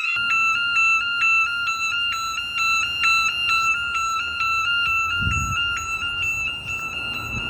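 Electronic fire alarm sounder during a test: a steady high tone with a second tone stepping rapidly up and down over it. A brief low rumble comes about five seconds in.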